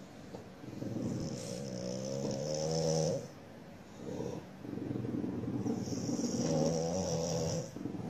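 French bulldog growling at a house gecko perched on its nose: two long growls of about two and a half seconds each, with a short one in between.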